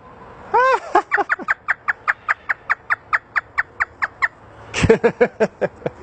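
African grey parrot imitating a hysterical laugh: a rapid run of short notes, each falling in pitch, at about five a second for some three seconds, then a few louder notes near the end.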